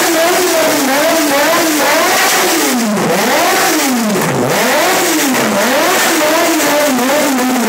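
Yamaha XJ6's 600 cc inline-four revved repeatedly through an aftermarket WR exhaust. The pitch rises and falls in quick swoops, dropping low twice near the middle.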